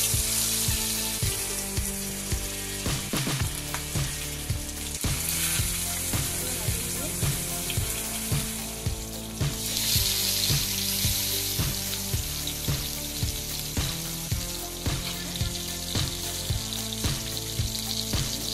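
Masala-coated rohu fish steaks sizzling as they fry in hot oil in a kadai. The sizzle flares louder about five and ten seconds in as more pieces are laid into the oil, over background music with a steady beat.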